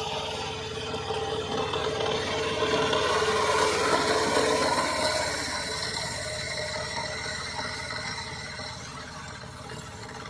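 Power tiller (two-wheel tractor) engine running with a fast, even firing rhythm. It grows louder to a peak about four seconds in, then fades away.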